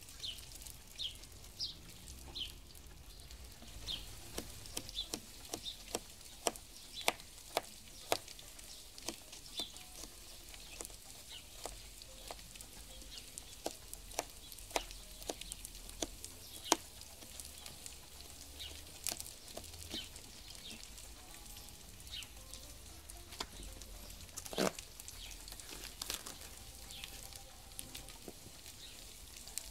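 Diced potatoes frying in a pan over a small wood-burning camp stove: a low sizzle broken by frequent sharp, irregular pops and crackles.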